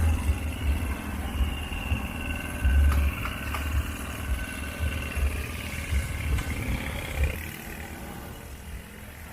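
A low engine rumble, uneven in strength, dropping away about seven seconds in.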